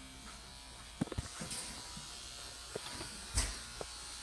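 Electric dog-grooming clippers running with a steady buzz, with several sharp knocks over it, the loudest about three and a half seconds in.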